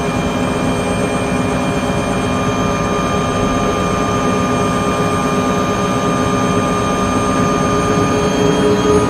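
A helicopter running steadily: a high turbine whine over the fast, even chop of the rotor blades, with the whine edging up in pitch near the end.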